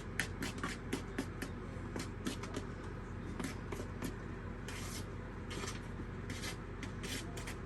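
Icing of Cool Whip, crushed pineapple and instant pudding being stirred by hand in a bowl: irregular scraping and clicking of the utensil against the bowl, over a steady low hum.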